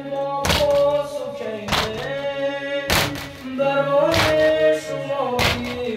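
Men beating their chests in unison in Shia matam, five sharp thuds about every 1.25 seconds, under a male voice singing a noha with long held notes.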